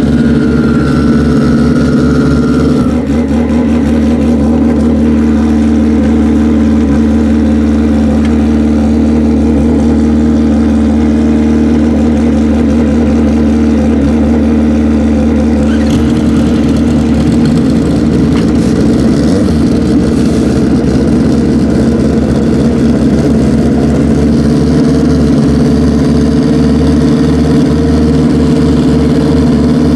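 Pro Street drag motorcycles idling while stationary, a loud steady engine drone made of several even tones. About halfway through, one of the lower engine tones drops out.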